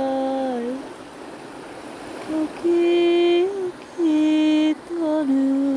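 Unaccompanied voice singing a Māori waiata in long held notes. The first note ends with a slide down, then after a pause of about a second and a half come several more sustained notes, the last one gliding down.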